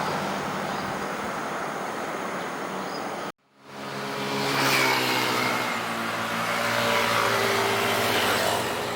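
A motor vehicle engine running, with a steady low hum over noise. It cuts out abruptly about three seconds in and comes back fading up with a stronger layered drone.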